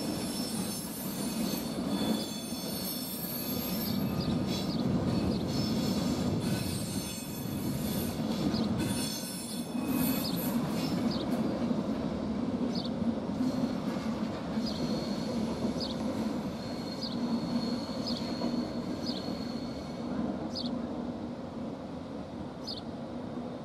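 ÖBB Nightjet passenger train arriving along the platform: a steady rumble of the rolling coaches, with short, high metallic squeals every one to two seconds, easing off near the end.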